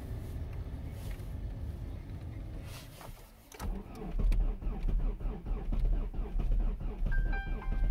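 2005 Volkswagen Passat 1.9 TDI PD four-cylinder unit-injector diesel cold-started at about -17 °C. After about three and a half seconds of low steady hum it cranks, catches almost at once and runs at a raised cold idle with loud, even diesel clatter. A short electronic tone sounds near the end.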